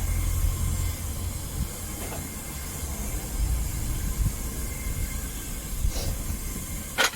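Homemade propane furnace burner running with a steady low rumble and hiss. A couple of sharp knocks come near the end.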